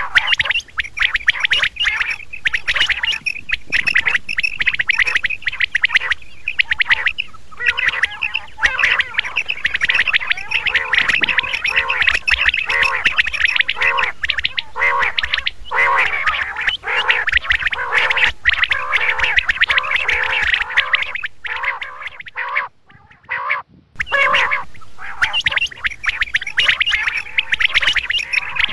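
Quail calling: a dense run of short, rapidly repeated call notes, several birds or calls overlapping, with a brief break a few seconds before the end.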